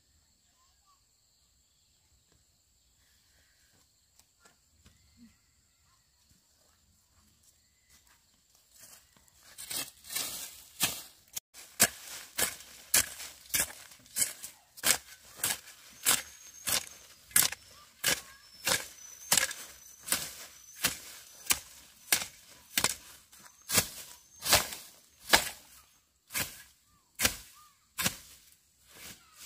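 A steady series of sharp chopping strikes, about one and a half a second, starting about ten seconds in after near silence.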